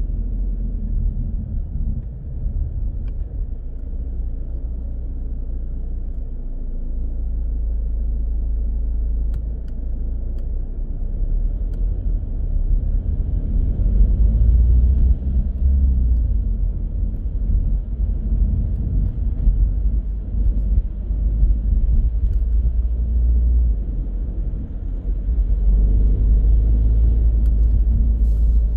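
Steady low rumble of a car driving: road and engine noise that swells and eases a little and grows louder near the end.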